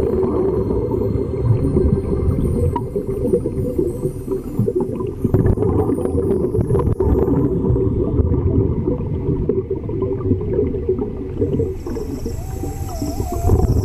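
A deep, muffled rumbling wash, like water heard underwater, with a wavering whale-like tone near the end.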